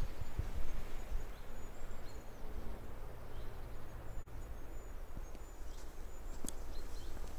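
Forest ambience: small birds chirping faintly now and then over a steady low rumble, with a few light clicks.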